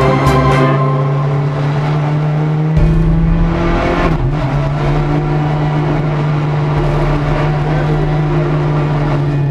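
Renault Clio Super 1600 rally car's 1.6-litre four-cylinder engine running hard under load, heard from inside the cabin during a hillclimb run, with a change in its note about three to four seconds in.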